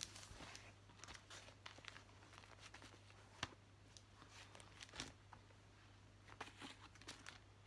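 Faint rustling and a few soft clicks from cross-stitch fabric and project materials being handled and set down, over a low steady electrical hum.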